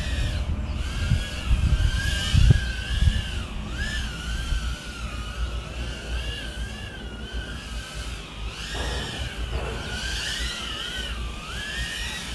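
High-pitched whine of the Meteor 65 1S tiny whoop's 0802 19500KV motors in flight, its pitch rising and falling constantly with the throttle. A low rumble runs underneath, strongest in the first few seconds.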